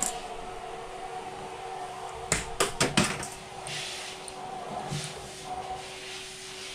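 Steady hum of a desktop 3D printer's small cooling fan, with a quick run of four or five sharp clicks about two and a half seconds in as the printer is handled.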